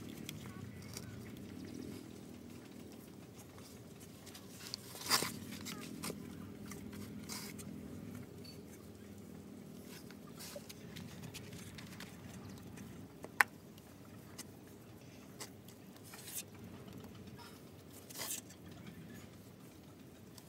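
Hands patting, squeezing and pressing wet mud onto small hollow clay bricks: soft irregular pats and squelches with scattered clicks, and a louder knock about five seconds in.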